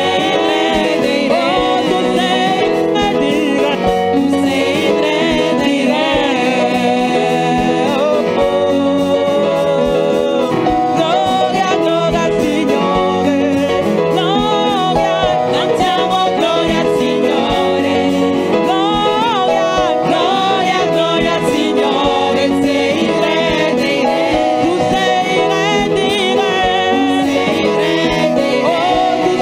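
Upbeat gospel worship music: singing over instruments with a steady beat.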